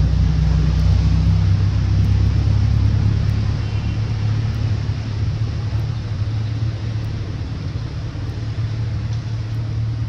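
A motor vehicle's engine running steadily, a low hum that gets a little quieter about halfway through.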